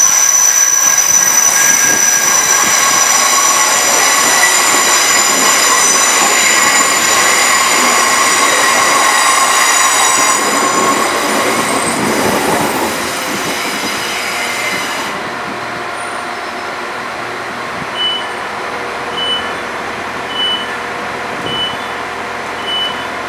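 Northern Ireland Railways Class 3000 diesel multiple unit pulling in and braking, its wheels and brakes squealing in several steady high tones that fade and stop about fifteen seconds in as the train halts. The standing train then hums steadily while a door alert beeps five times, about once a second, as the doors open.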